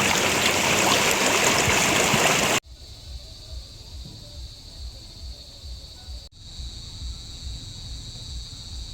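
Rushing river water, a loud steady noise that cuts off abruptly about two and a half seconds in. After that comes a much quieter stretch with a steady high-pitched hum over faint low rumbling.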